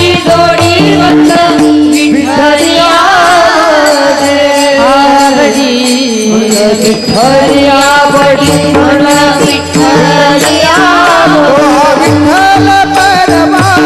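A woman singing a devotional kirtan melody in long, gliding, ornamented phrases, over a steady held drone and hand-drum accompaniment.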